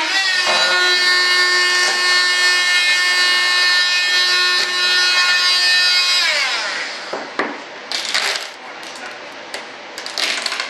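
Handheld corded rotary tool running at a steady high whine while trimming cured fiberglass layup, then switched off and winding down in pitch about six seconds in. A few short scratchy noises follow.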